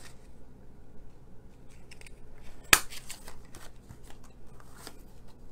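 A small handheld snowflake craft punch snapping through cardstock: one sharp click about three seconds in, with faint paper handling and small clicks around it.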